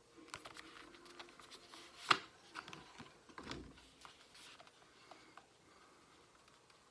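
Faint handling of a leather journal: light rustles and small clicks as it is turned and opened, with a sharper click about two seconds in and a soft thump a second or so later, then it goes quiet.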